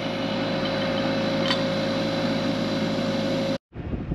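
Steady engine hum with a constant tone, and a single sharp knock like a hammer blow about a second and a half in; the sound cuts off suddenly near the end.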